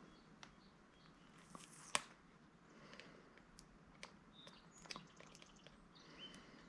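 Near silence with scattered faint clicks and taps of small parts being handled and pried during a teardown, one sharper click about two seconds in.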